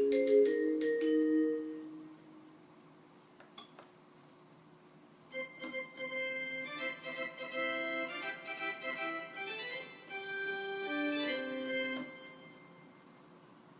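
Seoul subway chime melodies played on a Korg tinyPiano toy piano. The last notes of one tune ring and fade over the first two seconds; after a pause, a quicker, busier melody of many notes plays for about seven seconds and then fades.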